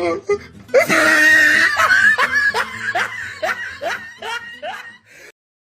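A person laughing: a loud outburst about a second in, then a string of short rising 'ha' pulses, about three a second, that fade away.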